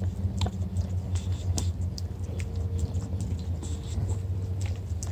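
English bulldog licking and snapping at falling snowflakes: scattered wet mouth clicks and smacks, over a steady low droning hum.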